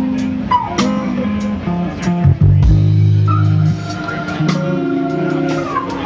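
Live band playing instrumental music: electric guitar, keyboard and drum kit, with drum hits throughout. A low bass note is held through the middle, and a high note is sustained through the second half.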